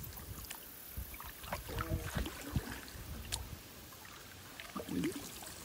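Canoe moving across a calm pond: soft paddling and water sounds with a few light knocks, over a low rumble.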